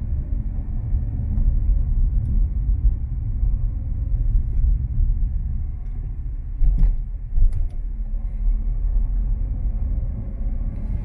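Road and tyre rumble inside the cabin of a Renault Arkana on the move, with a couple of short knocks about seven seconds in.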